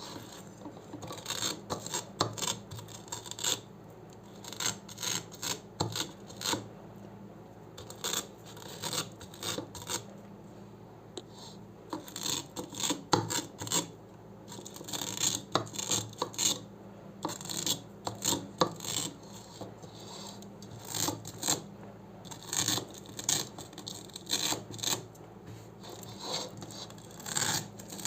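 Hook-and-loop (Velcro) fastener being pulled apart and handled, a run of short crunchy rips in irregular bursts with brief pauses.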